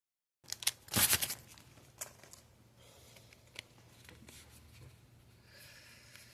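A foil booster pack wrapper crackling and tearing open in a short, loud burst about a second in, after a few sharp clicks. Lighter clicks and a soft rustle of trading cards being handled follow.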